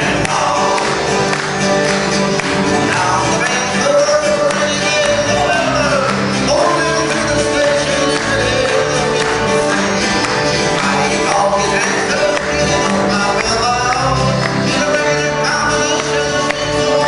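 Live cowboy-style country music from a band of acoustic guitars and an accordion, with singing over it.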